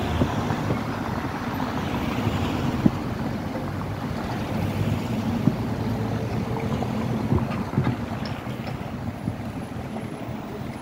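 City street traffic: cars rolling slowly past on the road beside the tram tracks, a steady rumble with a few sharp clicks.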